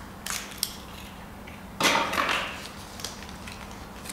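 A plastic draw ball is handled and opened with a few small clicks. About two seconds in comes a brief, louder rustle of paper as the slip inside is pulled out and unrolled.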